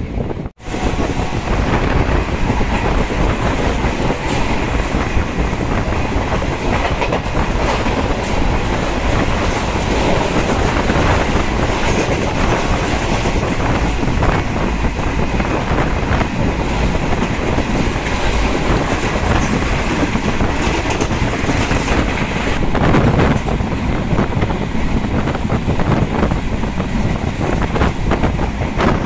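Passenger express train running at speed, heard from an open coach doorway: a loud, steady rumble and rush of air, with the wheels clattering over the rail joints.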